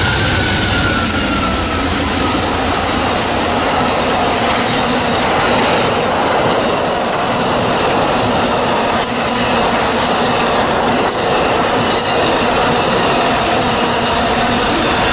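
Train cars rolling past on the rails: a steady, loud rush of wheel and rail noise with faint high wheel squeal and a few sharp high squeaks.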